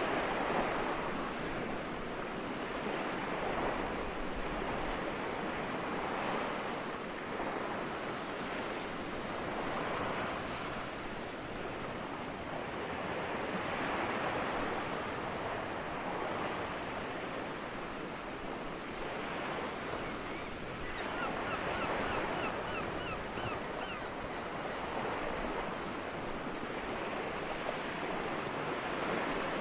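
Gentle sea waves washing onto the shore, the surf swelling and fading every few seconds. About two-thirds of the way in, a gull gives a quick run of short calls.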